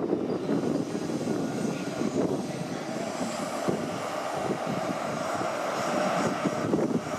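Class 43 diesel power car of a First Great Western HST (InterCity 125) running as the train moves slowly through the station: a steady engine drone, with a thin steady whine from about halfway through.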